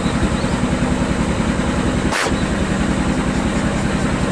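Motor-driven grinding mill running with a loud, steady drone while grinding dried rice-field snail shells into flour, with a brief break about two seconds in.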